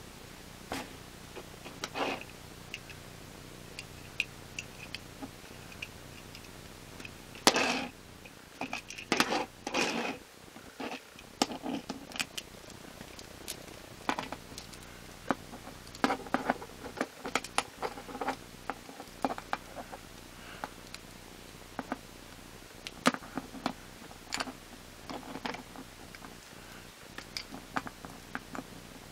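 Small plastic Transformers Cyberverse toy being transformed by hand: irregular clicks and snaps of plastic parts with brief rustles of fingers handling it, a few longer, louder rustles about a third of the way through, over a faint steady hum.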